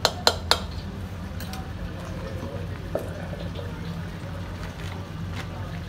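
A spoon knocking three times in quick succession against a cooking pot as cumin powder is added, with one lighter knock about three seconds in. A low steady hum runs underneath.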